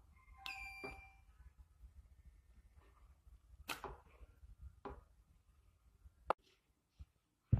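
A short electronic beep about half a second in, followed by a few sharp, isolated clicks and taps spread through the rest.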